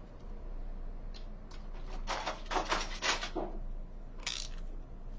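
A run of short clicks and light taps as a snap-off utility knife is picked up and handled beside a metal ruler on foam board, with a brief scrape near the end.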